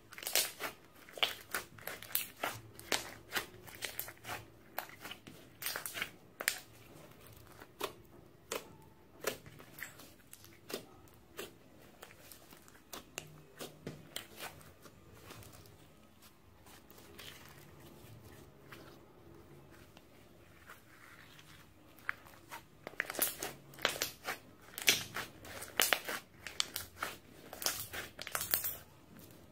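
Glossy slime being squeezed and kneaded by hand, giving a run of sticky clicks and pops as trapped air is pressed out. The clicks come thick and fast near the start and again in the last several seconds, sparser in between.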